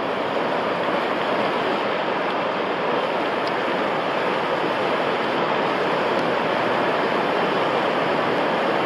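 Turbulent tidal-race water rushing and breaking in standing waves and boils, a steady continuous wash of whitewater.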